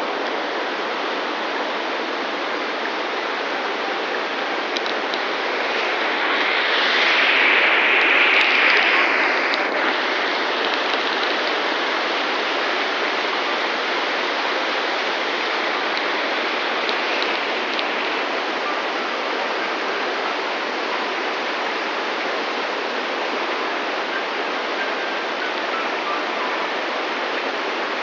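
Waterfall and fast, rocky river water rushing in a steady, loud roar. It swells louder for a few seconds about a quarter of the way in.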